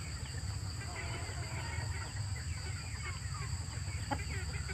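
Chickens clucking and chirping in short, scattered calls, over a steady high-pitched hum and a low rumble.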